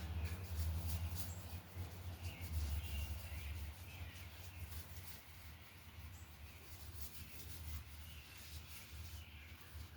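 Faint squeaky rubbing as oil finish is worked by hand over a turned camphor wood pot, over a steady low hum; the rubbing is busier in the first few seconds and then thins out.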